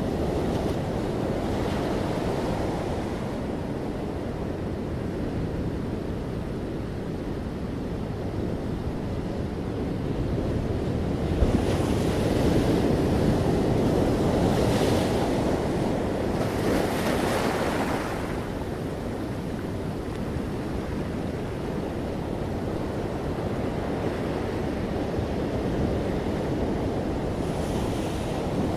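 Ocean surf: waves washing and breaking on a shore in a continuous rushing wash, swelling louder through the middle with several waves breaking in quick succession, then easing back, with another wave breaking near the end.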